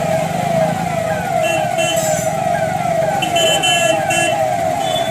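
Electronic siren sounding with a rapidly repeating falling wail, a little under three sweeps a second. Short high beeping tones cut in twice over it.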